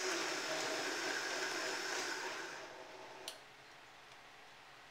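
Countertop blender pureeing chunks of watermelon, running steadily, then winding down and stopping about three seconds in, followed by a single click.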